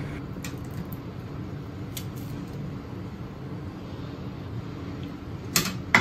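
Steady background hum with a few faint handling clicks as the salmon fillets are set down on baking paper, and two sharper taps near the end.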